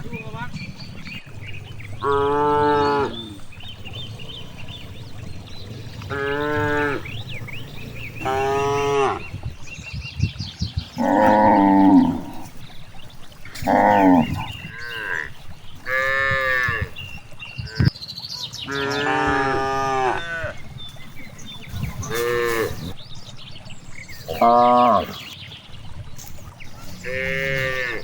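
Cattle mooing again and again: about ten separate calls, each lasting around a second, spaced a few seconds apart.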